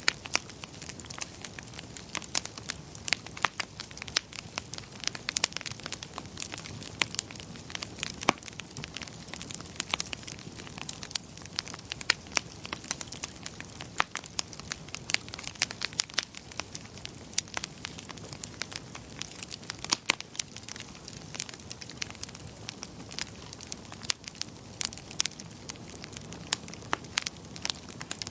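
Wood fire crackling in a fireplace: a continuous stream of sharp pops and snaps over a low, steady rumble of burning.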